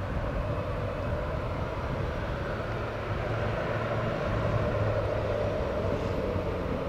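Airbus A319 jet engines running at low taxi power as the airliner taxis after landing: a steady rumble with a constant hum.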